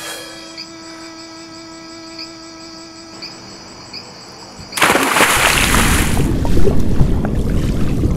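Crickets chirping over a held low musical note, then about five seconds in a sudden loud splash as a person plunges into a swimming pool, followed by dense churning, bubbling water noise.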